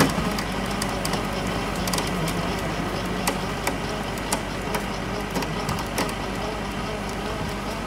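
Irregular sharp clicks and crackles, several a second at times, over a steady low hum.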